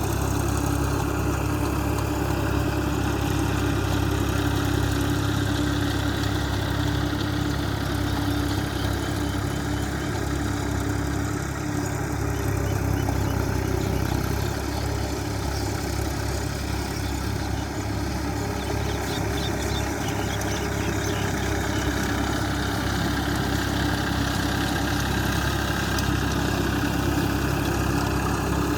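Tractor diesel engine running steadily under load while plowing, a continuous low drone.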